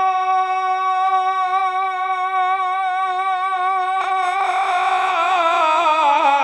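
A man singing a naat without accompaniment, holding one long high note with a slight vibrato for about four seconds, then breaking into a wavering, ornamented run.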